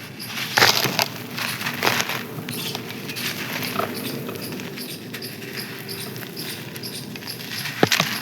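Dry, crisp baked sand or clay crunching and crumbling as it is crushed: a continuous crackle of small clicks, with louder crunches about half a second in, near two seconds, and near the end.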